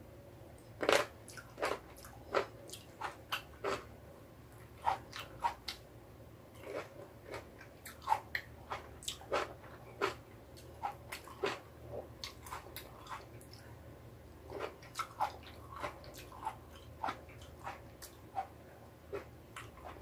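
Cherry tomatoes bitten and chewed close to the microphone: a long, irregular run of short sharp mouth clicks, the loudest about a second in and again about eight seconds in.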